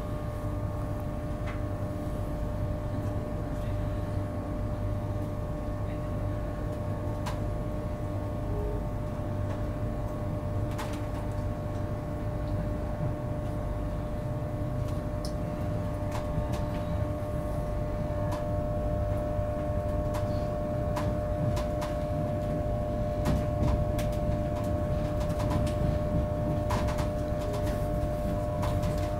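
Inside a Mark 4 carriage of an Intercity 225 train running at low speed: a steady rumble with a constant hum, and scattered clicks of the wheels over rail joints and pointwork. The sound grows slightly louder and the clicks come more often toward the end as the train gathers speed.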